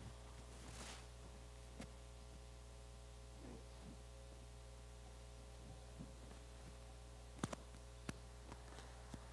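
Near silence: a steady low electrical hum, with a few faint clicks and knocks, the sharpest two close together about seven and a half seconds in.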